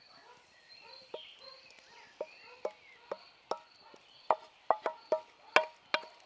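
A wooden spatula knocks and scrapes against an enamel bowl while greens are scraped out of it. There are about a dozen sharp knocks, roughly two a second, and they grow louder in the second half. The bowl rings briefly after each knock.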